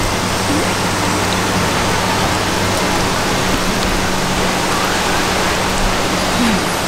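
Pork and noodles sizzling on a mookata dome grill pan: a steady, even hiss.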